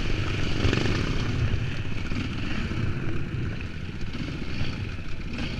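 Enduro dirt bike engine running under throttle on a rocky uphill trail, heard close from a mount on the bike, easing off slightly toward the end.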